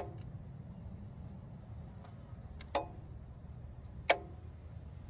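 Car AC compressor's electromagnetic clutch clicking in and out as 12 volts is applied to and removed from its coil: a sharp click right at the start, a quick double click near three seconds in, and another about four seconds in. The clicks show the clutch engaging, the sign that it is working properly.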